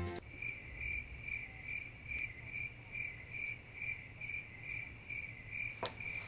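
A high-pitched chirp repeating steadily, three or four times a second, with a single sharp click near the end.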